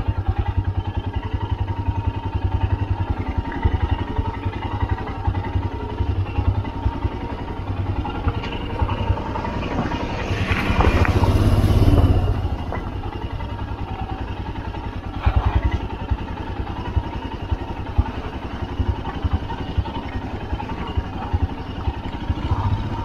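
Motorcycle engine running steadily at low speed while descending a steep mountain road, with a louder rush of noise about ten seconds in.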